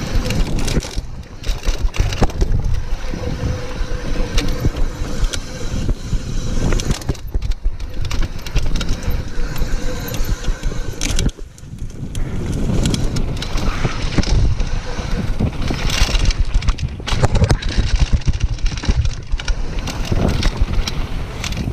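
Mountain bike riding fast down a dirt and gravel trail: tyres rolling over dirt and loose stones and the bike's chain and parts rattling and knocking over the bumps, with wind buffeting the camera's microphone. The noise drops briefly about halfway through.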